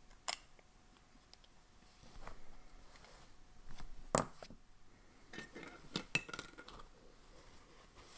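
Pens and ink supplies being handled and set down on a desk: a few sharp clicks and clinks, the loudest about four seconds in, with a brief light ringing around six seconds in.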